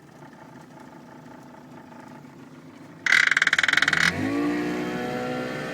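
Johnson 25 hp two-stroke outboard being started with its electric starter: after a faint steady hum, the starter cranks loudly with a fast pulsing for about a second, then the engine catches, its pitch rises briefly and it settles into a steady idle.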